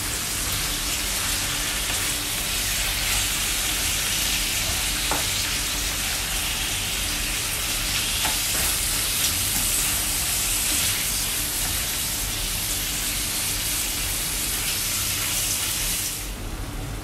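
Cubed pork liver sizzling in hot oil in a frying pan, par-fried to take away its fishy smell, with the spatula scraping and stirring it now and then. The sizzle drops off sharply near the end.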